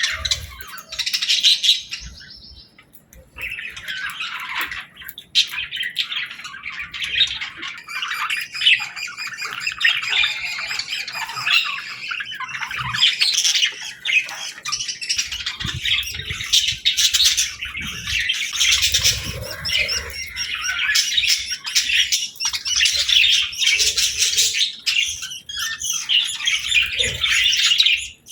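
A flock of budgerigars chattering with many overlapping chirps, squawks and warbles, nearly continuous apart from a brief lull a couple of seconds in, with occasional wing flutters and low thumps.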